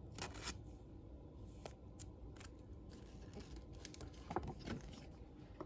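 Thin clear plastic card sleeve crinkling and rustling in the hands as a trading card is worked into it. It comes as a few brief soft rustles and clicks, one group at the start and the clearest cluster about four and a half seconds in.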